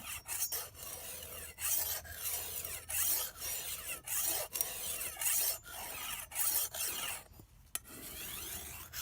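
File rasping along a steel machete blade in repeated sharpening strokes, about one a second, each a bright scrape, with a short pause near the end.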